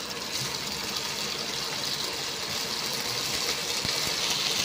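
Strips of maling (canned luncheon meat) sizzling steadily in hot oil in a stainless steel pot.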